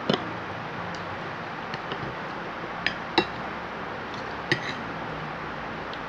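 Metal fork and spoon clinking against a plate while eating, about seven short separate clinks, the loudest just after three seconds in, over a steady hiss.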